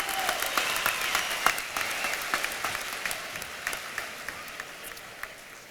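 Audience applauding, many hands clapping at once, the applause gradually dying away.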